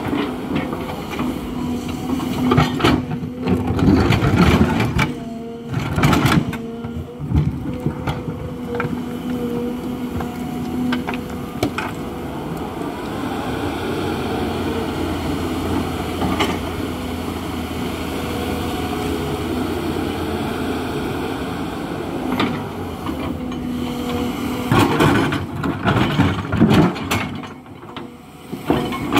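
Hidromek HMK 220LC excavator's diesel engine running steadily, with bursts of knocking and clatter about three to seven seconds in and again near the end.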